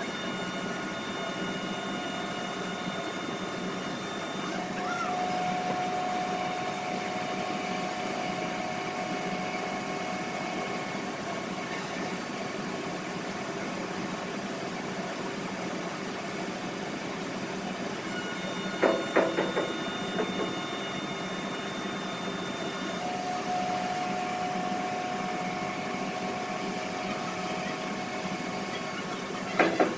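A machine running steadily, with a low drone and several steady whining tones that come and go. About two-thirds of the way in, and again at the very end, short bursts of rapid pulsing sounds stand out above it.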